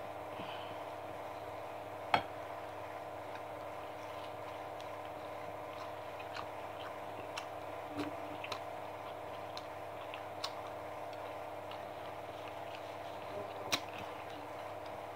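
Close-up chewing and mouth clicks of someone eating fried chicken, with scattered small ticks and a couple of sharper snaps about two seconds in and near the end, over a steady low hum.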